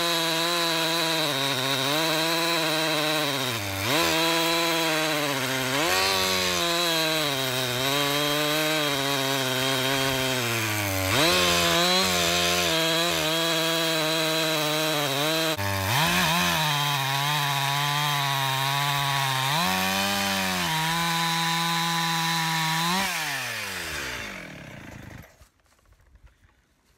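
Husqvarna two-stroke chainsaw ripping lengthwise through an ash log under load, its engine pitch dipping and rising again every few seconds. Near the end the engine note falls away and the saw stops.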